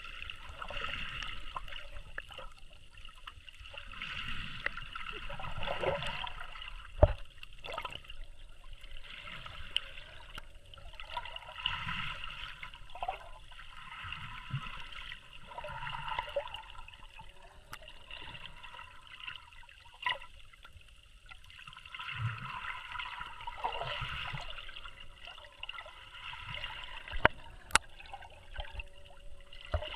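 Water heard from a camera held underwater: a muffled, gurgling wash that swells and fades every few seconds. A sharp click stands out about seven seconds in, and a couple more come near the end.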